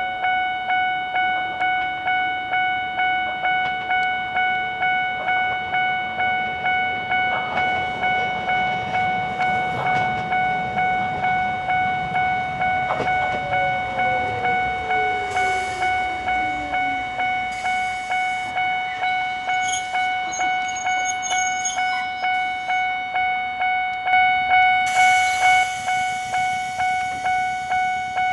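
Railway level-crossing warning bell ringing in an even repeated ding as an Ichibata Electric Railway 3000 series electric train comes in and slows. The train's motor whine falls steadily in pitch as it brakes, and a short hiss comes near the end.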